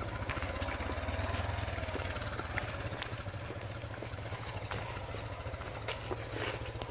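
Small motorcycle engine running steadily at low revs, with a few faint clicks scattered over it.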